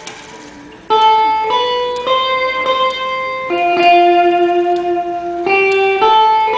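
Electric guitar playing a slow melody of single sustained notes, the pitch changing about every half second to two seconds.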